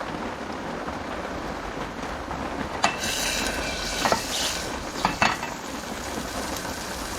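Steady rain on a tarp shelter. Near the middle there are a few sharp clinks of cookware and a short sizzle, as ingredients go into hot oil in the pot.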